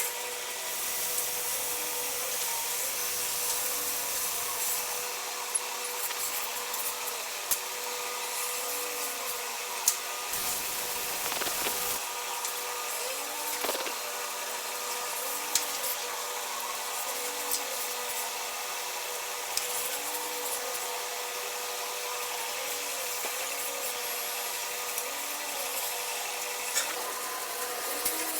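Milking parlour machinery running: a steady hiss and hum with a faint sound recurring every couple of seconds and occasional sharp clicks and knocks.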